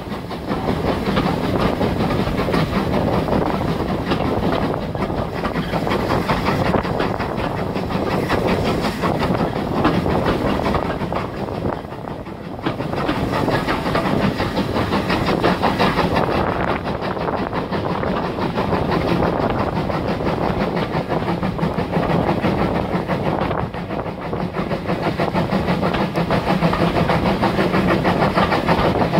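A train running past, its wheels clattering over the rail joints in a steady, continuous run, with two brief dips in loudness.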